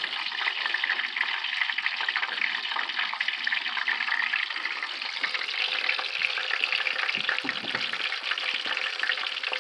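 Battered walleye pieces frying in hot grease in an electric skillet: a steady, dense crackling sizzle.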